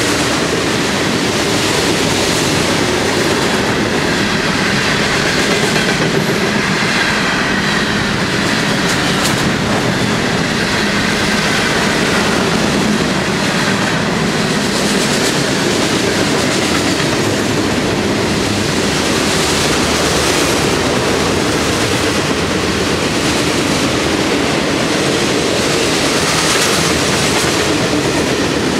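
Freight cars of a long CSX train (boxcars and covered hoppers) rolling past at close range, with the steady noise of steel wheels on rail. A faint high-pitched wheel squeal is heard from about four to thirteen seconds in.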